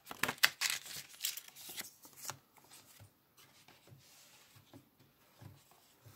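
Paper instruction leaflets rustling and crackling as their pages are flipped and handled, densest in the first two seconds or so, then quieter scattered handling sounds.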